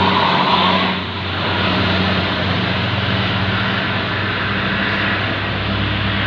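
Tour bus diesel engine running as the bus passes close by: a steady low drone over road noise, with a brief dip in loudness about a second in.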